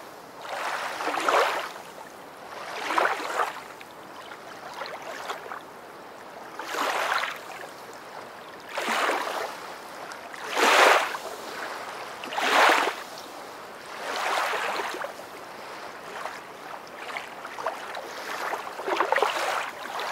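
Water sloshing and lapping in uneven surges, one every two seconds or so.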